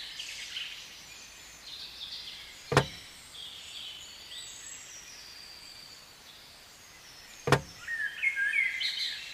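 Birds chirping and singing in the background, broken by two sharp knocks about five seconds apart.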